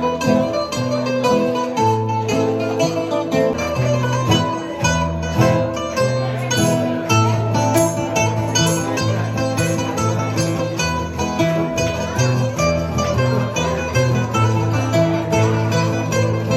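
Bouzouki and acoustic guitar playing Greek music together: the bouzouki picks a quick melody of plucked notes over the guitar's chords and bass notes.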